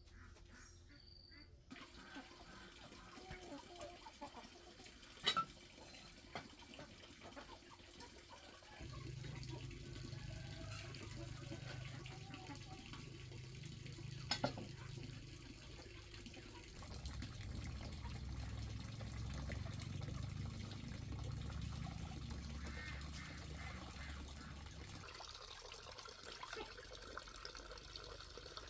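Water running and splashing, heavier through the middle stretch, with two sharp knocks: one about five seconds in and one near the middle.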